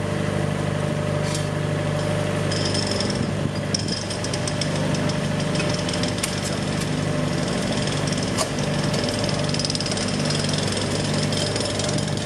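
An engine runs steadily on a track-works site. From about two and a half seconds in, a hand-held hose-fed power tool on the rails joins it, hammering rapidly.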